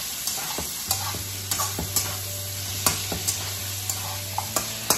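Boiled pork belly and carrot slices sizzling in oil in a wok, while a metal slotted spatula stirs them, scraping and clicking against the pan in quick, irregular strokes.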